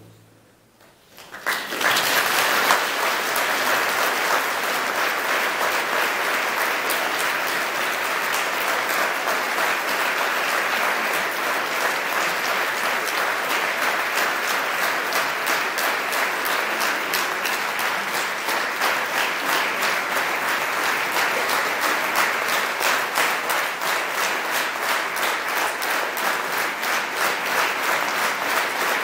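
Concert audience applauding at the end of a choral-orchestral piece: after a brief hush, the clapping breaks out about a second and a half in and continues steadily and strongly.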